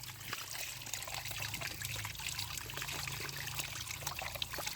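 Water trickling steadily, as when muddy plastic toys are rinsed, with a low steady hum underneath.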